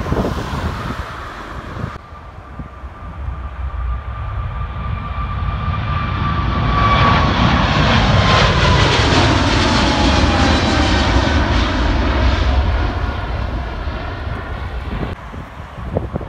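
Boeing 777's twin jet engines at take-off power as it climbs out overhead. The roar builds to a peak about halfway through, with a whine that slides down in pitch as it passes, then eases off.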